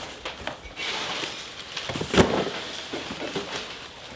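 Cardboard boxes and clutter being handled and moved: rustling and scattered knocks, with one sharp thud about two seconds in.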